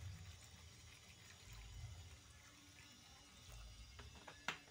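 Faint sound of water being poured from a plastic bottle onto dried fish in an aluminium pan, then a single sharp click near the end.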